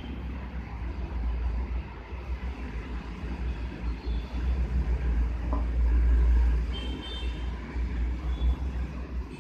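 Low, uneven rumble that swells about six seconds in.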